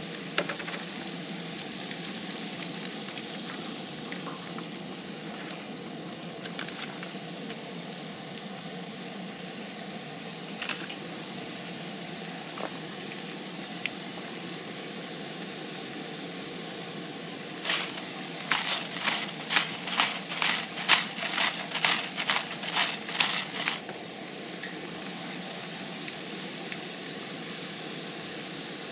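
Ground beef sizzling in a skillet on a propane camp stove, a steady frying hiss. Past the middle comes a run of about a dozen quick rattling strokes, about two a second, lasting some six seconds, as seasoning is shaken from a spice jar over the pan.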